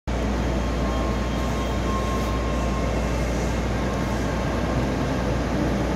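Steady interior noise of a Toei Oedo Line 12-000 series linear-motor subway car, with a Mitsubishi Line-Delia ceiling cross-flow fan blowing overhead.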